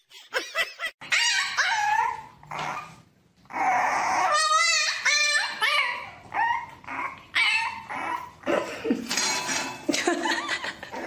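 A puppy whining and yipping in a run of short, high, sliding cries, with one wavering cry about four and a half seconds in.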